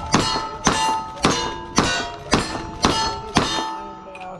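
Rapid string of gunshots striking steel targets: seven sharp hits about half a second apart, each leaving the steel ringing, with the ringing fading away near the end.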